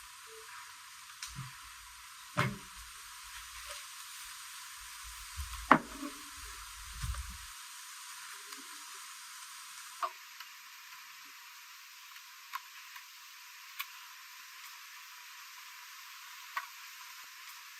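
A steady hiss with a few scattered sharp knocks and clicks; the loudest knock comes about six seconds in, another strong one at about two and a half seconds, and lighter clicks follow every few seconds.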